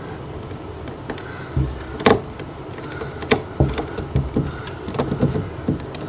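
Irregular clicks and light knocks of small hard parts being handled, the loudest a sharp click about two seconds in, followed by a run of smaller taps.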